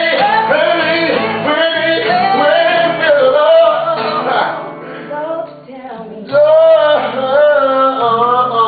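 A song playing: a singer's wordless vocal runs over guitar and band backing, with a short lull about five seconds in.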